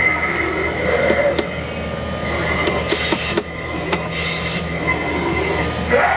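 A Tombstone Terror animatronic Halloween prop playing its sound effects: a sustained high screech over grinding noise. Several sharp clicks fall in the middle.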